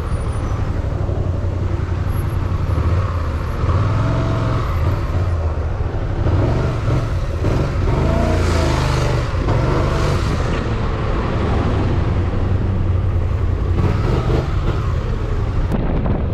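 BMW motorcycle running at road speed in traffic, a steady low engine hum with wind rushing over the microphone, swelling briefly about halfway through.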